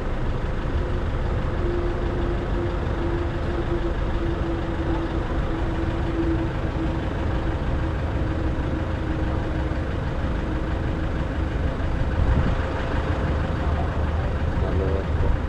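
A vehicle engine idling with a steady low rumble. A thin, steady whine sits over it and fades out about two-thirds of the way in.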